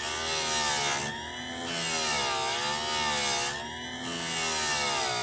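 Powered chainsaw-chain grinder running, its wheel brought down onto the cutter teeth in three short grinding passes. Each pass adds a high grinding hiss while the motor's pitch sags and rises.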